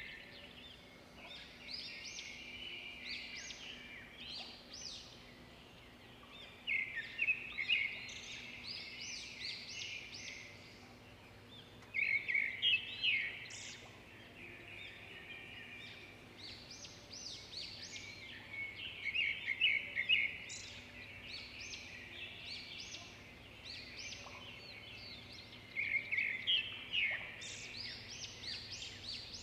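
Red-whiskered bulbul singing: loud bursts of quick, rapidly repeated whistled phrases about every six seconds, with softer chattering notes in between.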